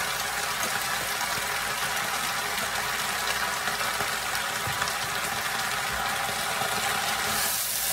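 Leafy greens sizzling in a hot frying pan, a steady hiss. Near the end it grows louder as a wooden spatula starts stirring them.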